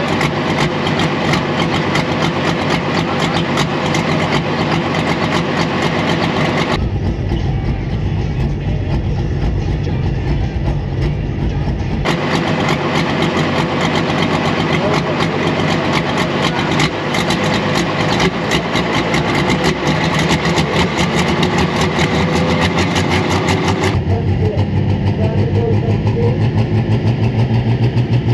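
Turbocharged diesel engine of a pro stock pulling tractor running loud, with a dense rapid pulsing. The sound changes abruptly at about 7, 12 and 24 seconds, and a deep pulsing grows louder near the end.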